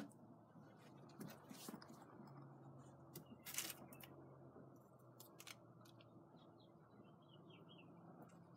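Near silence: faint rustling and clicking, as of straw bedding being stirred, over a low steady hum. The louder clicks come about a second and a half and three and a half seconds in.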